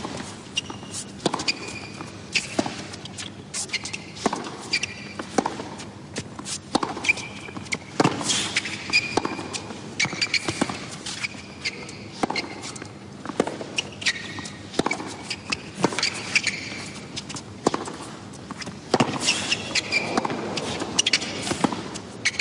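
Hard-court tennis rally: racquets strike the ball in a steady back-and-forth, a hit every second or so, with short high squeaks of tennis shoes on the court between shots.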